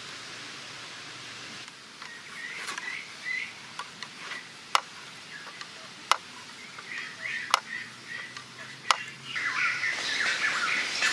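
Birds chirping in short bursts, with four sharp wooden clacks evenly spaced about a second and a half apart in the middle, from a hand-cranked bamboo mechanism. A steady hiss stops about a second and a half in.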